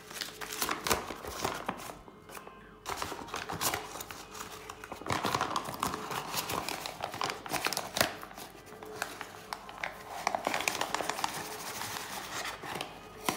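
A flour bag crinkling and rustling as it is handled and opened, with irregular crackles and rustles throughout, over background music.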